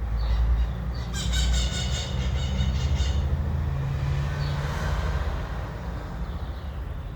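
A bird's harsh, pulsing squawk lasting about two seconds, starting about a second in, with a few short high chirps around it, over a steady low rumble.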